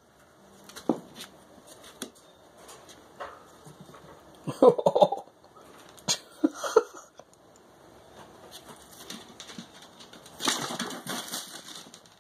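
Chinchillas moving about in hay beside a wire cage: scattered rustling and clicks, with a few short louder bursts about halfway through and a longer rustle near the end.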